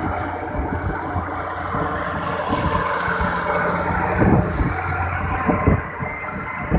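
Fiat-Hitachi FH200LC excavator's diesel engine running steadily, with a low even hum and a dense mechanical noise over it. A few short knocks come in the second half.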